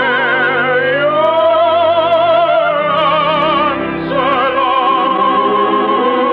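Operatic-style singing of a love song, with long notes held in wide vibrato over an orchestral accompaniment; the melody moves to a new held note at about one second and again at about four seconds.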